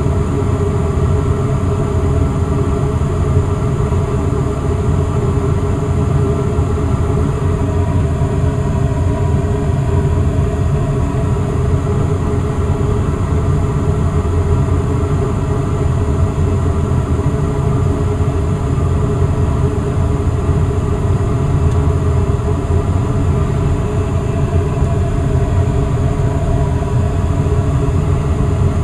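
Westinghouse gas furnace running with its blower fan on: a steady low hum and rush of air with a few constant tones above it.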